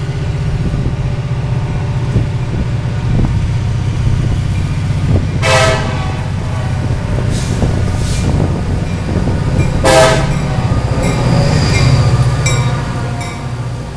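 CSX freight train's diesel locomotive rumbling as it approaches and passes close by, sounding two short horn blasts about five and ten seconds in. Wheels clicking over the rail joints as the locomotive goes by near the end.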